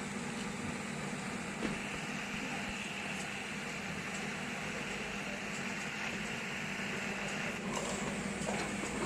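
Steady mechanical hum and hiss, with a higher hiss that starts about two seconds in and stops near the end.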